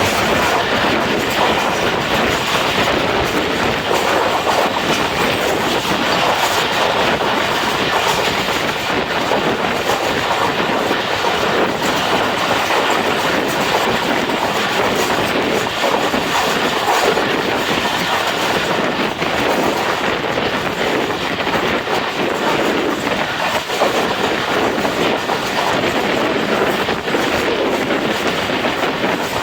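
Hazara Express passenger train running at speed on the line: a steady rushing rumble with the clatter of wheels over the track.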